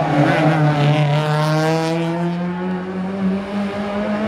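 Fiat Panda RS rally car's 1.4-litre four-cylinder engine pulling hard out of a hairpin, its note rising steadily in pitch as it accelerates away.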